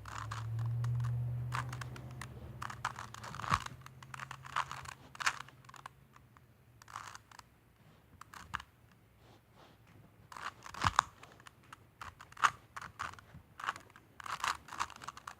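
Rubik's cube being turned by hand: irregular clicking and clacking of the plastic layers, in quick clusters with short pauses. A low hum fades out over the first few seconds.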